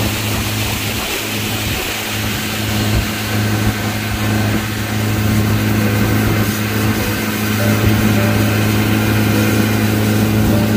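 Fishing boat's motor running steadily at speed, a constant hum, with the rush of water and wind as the boat cuts through the lake.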